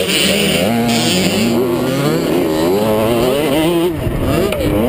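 Small youth motocross bike engine running hard, its pitch rising and falling over and over as the throttle is worked and it shifts over the bumpy track.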